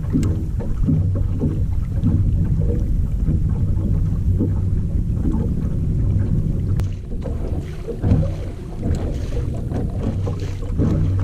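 Steady low hum and rumble aboard a small fishing boat on the water, with a few light clicks and knocks.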